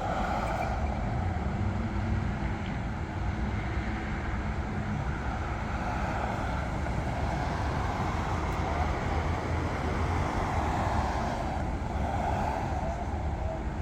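Steady road traffic noise with a low rumble of passing vehicles.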